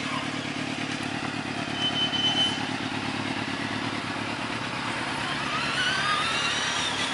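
A motor vehicle's engine running steadily, with some high wavering tones near the end.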